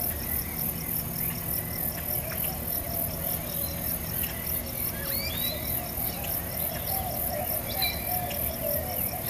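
Soundtrack ambience of steady, fast, evenly pulsing insect-like chirping over a low sustained musical drone, with a few short high squeaky glides.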